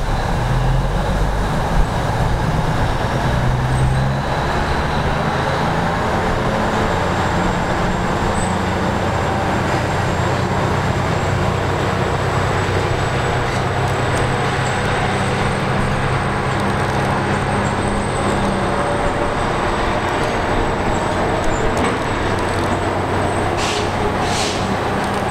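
Diesel-electric work locomotive's engine running steadily as it moves slowly along the track. Two short hisses near the end.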